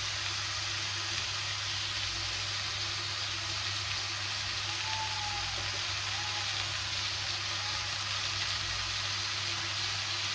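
Pumpkin pieces frying in ghee in a kadhai: a steady, even sizzle.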